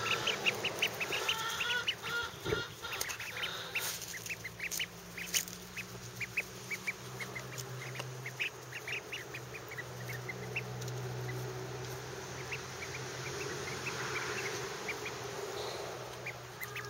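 Fawn-and-white runner ducklings, about two and a half weeks old, peeping in many short high chirps, busiest in the first couple of seconds and scattered after. A steady low hum runs underneath.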